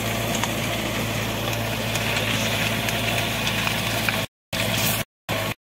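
Compact tractor's diesel engine running steadily while a rotary tiller works the soil. From about four seconds in, the sound drops out to dead silence three times, each time briefly.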